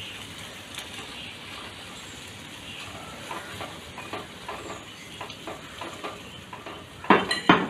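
Onion, tomato and green chilli masala sizzling in a pot as a wooden spatula stirs in two chicken stock cubes to melt. Scraping strokes come every half second or so from about three seconds in, with two louder scrapes near the end.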